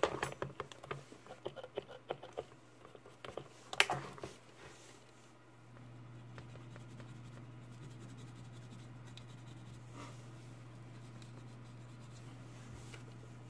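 Small brush scrubbing and tapping on a phone circuit board while cleaning it, a run of quick scratchy strokes with a sharper tap about four seconds in. After about five seconds the strokes fade and a steady low hum is left.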